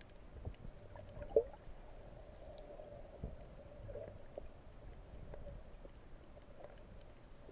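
Muffled underwater sound picked up by a camera held below the surface: faint water movement with a steady low hum, scattered soft clicks and knocks, and one sharper knock about a second and a half in.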